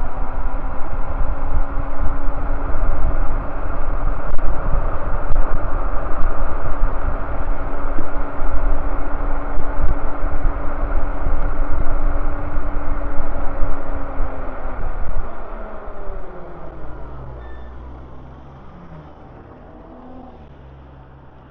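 Wind buffeting the microphone of a moving e-bike, with the electric hub motor's steady whine; about three-quarters of the way through the whine falls in pitch and the wind noise dies down as the bike slows.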